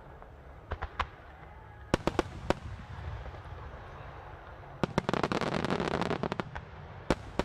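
Aerial firework shells of a starmine bursting: a couple of sharp bangs about a second in and a quick cluster about two seconds in. A dense run of rapid bangs and crackling follows for about a second and a half, then one more bang near the end.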